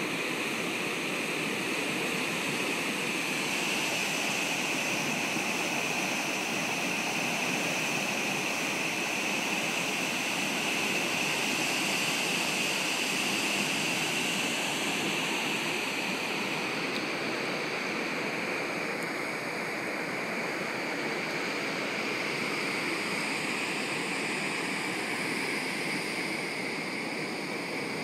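Steady rush of churning water in a cruise ship's stern wake.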